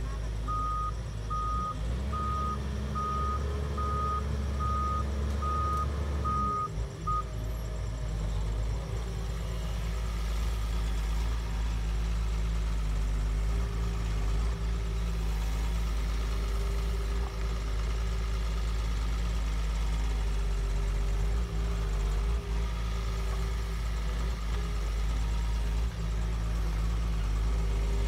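Doosan DX140W wheeled excavator's diesel engine running steadily under work. Its warning alarm beeps evenly, about nine beeps over the first seven seconds, then stops while the engine runs on.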